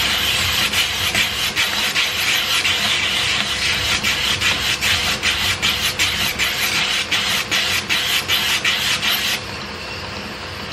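A small metal flange is ground on the slack 400-grit belt of a running 2x72-inch belt grinder to round over its edge. The grinding hiss pulses quickly through the second half and stops about nine seconds in, leaving the grinder's motor and belt running steadily.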